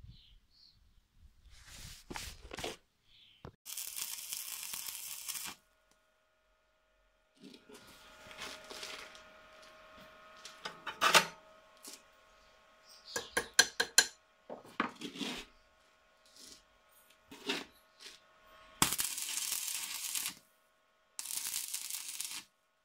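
Metal clinking and tapping on steel at a workbench, then two short bursts of electric arc welding crackle near the end, each about a second long. There is also a short burst of hiss about four seconds in.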